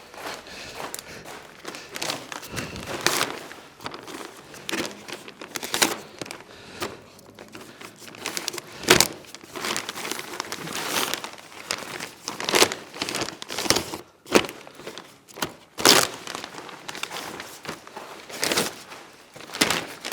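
Plastic damp-proof membrane sheeting being handled and unfolded, crinkling and crackling irregularly throughout.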